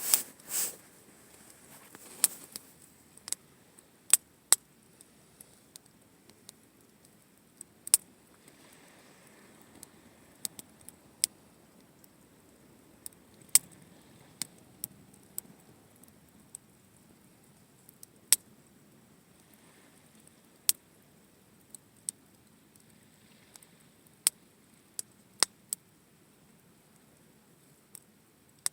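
Wood campfire crackling: sharp, irregular pops and snaps, some loud, over a quiet background, with a short rustling burst right at the start.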